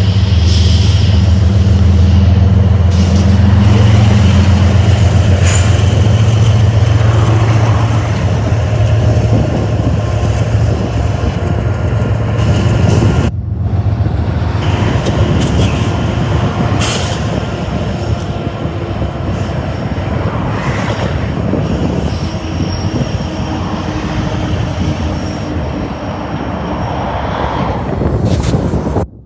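A freight train passing close by. A deep, steady diesel locomotive rumble fills roughly the first half, then the rattling clatter of freight cars rolling over the rails takes over, until the sound cuts off suddenly at the end.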